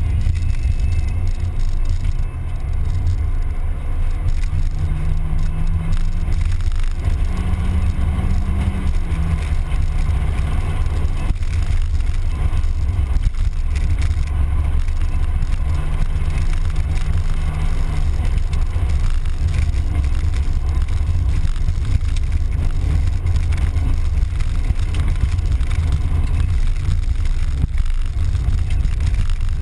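Mazda Miata's four-cylinder engine and road noise while driving, dominated by a heavy low rumble. A faint engine note steps up in pitch about seven seconds in and drops back a couple of seconds later.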